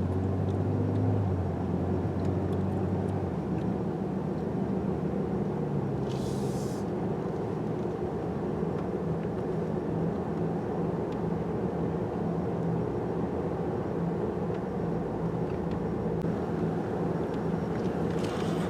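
Car driving steadily, heard from inside the cabin: an even engine and road rumble, with a brief hiss about six seconds in.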